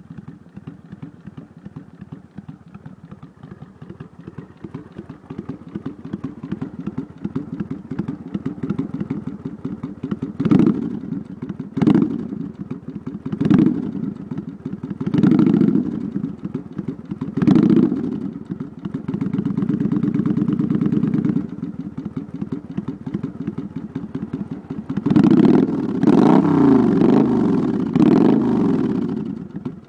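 Kawasaki Vulcan 800 V-twin exhaust: the engine idles with a lumpy, uneven beat, then is blipped five times in quick succession. It is then held at higher revs for a couple of seconds, drops back to idle, and is revved several times near the end.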